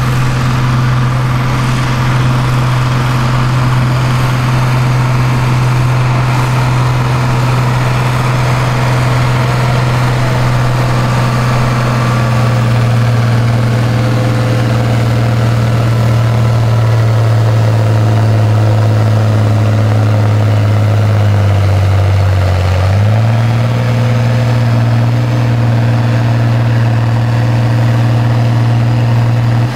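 Farm-stock diesel tractor pulling a weight-transfer sled under full load, its engine running at a steady high speed. About two-thirds of the way through, the engine note sags briefly in pitch and then climbs back.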